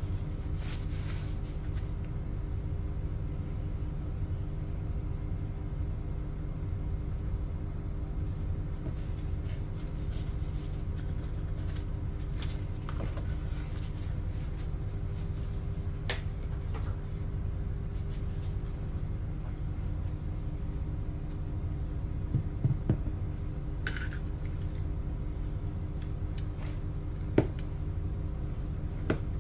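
Steady low room hum, with a few scattered light clicks and scrapes from handling packaging and a snap-off utility knife, the sharpest of them in the last few seconds as the knife is put to a box's seal.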